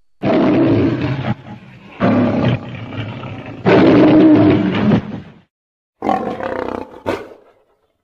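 Big cat roaring, presented as the extinct American lion (Panthera leo atrox): four loud, rough roars in a row, each starting abruptly. Lower rumbling carries on between the first three, and the last roar follows a short silent break.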